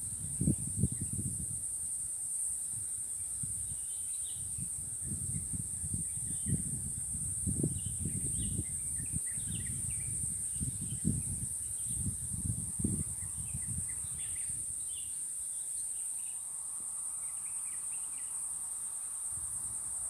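Insects shrilling in one steady, high-pitched drone, with wind gusting on the microphone in irregular low rumbles and faint scattered bird chirps.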